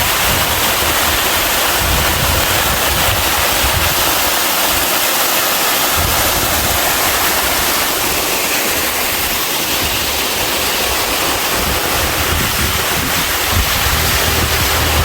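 Steady rush of a waterfall on a mountain stream, with uneven low wind rumble on the microphone at times.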